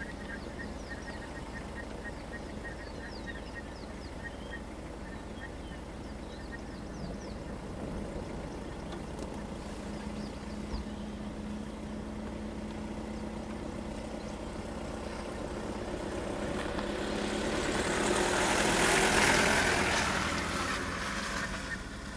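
A vehicle engine idling steadily, with short high chirps in the first few seconds. Near the end a broad rushing noise swells over a few seconds to the loudest point and fades again.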